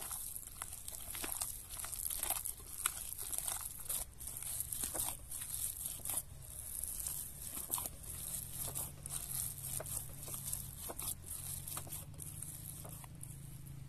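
Hands mixing a mashed potato, onion and egg mixture in a bowl, making a run of irregular soft crackles and small taps. A low steady hum comes in about halfway through.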